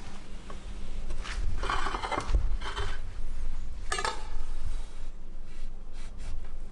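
Kitchen knife blade scraping and tapping on a wooden cutting board as raw fish slices are gathered up: a few short scrapes in the first half and a sharp clack about four seconds in, then fainter strokes.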